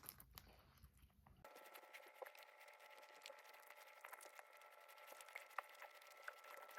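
Near silence: quiet room tone with a few faint, scattered ticks and clicks, and a faint steady hum after the first second and a half.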